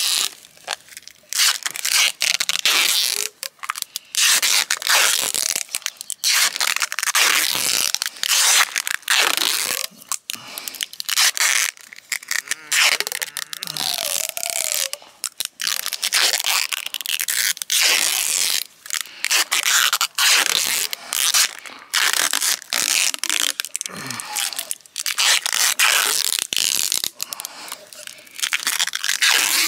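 Clear packing tape being pulled off its roll in repeated long rasping pulls with short pauses, as it is wound round and round a sawn olive stump to bind the grafted scions.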